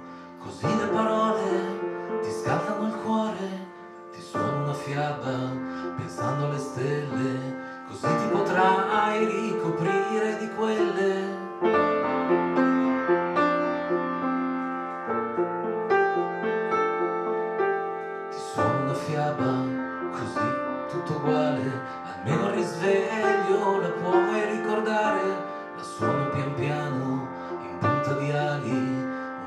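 A man singing a song in Italian while accompanying himself on piano; about halfway through the voice drops out for several seconds of piano alone before the singing comes back in.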